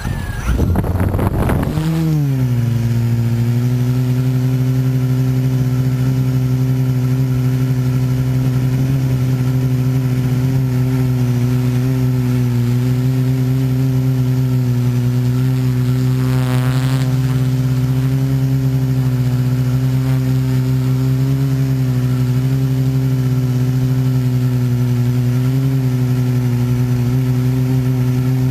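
The motors and propellers of a camera-carrying remote-control aircraft. They spin up and lift off in the first two seconds, then hold a loud, steady hum through the flight with only small changes in pitch. A brief warbling whine comes in about sixteen seconds in.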